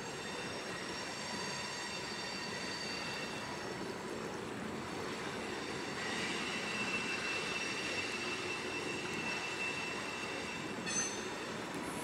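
Freight cars of a slow-moving mixed manifest train rolling by, with a thin, steady high-pitched squeal from the wheels that grows stronger about halfway through. A short knock comes near the end.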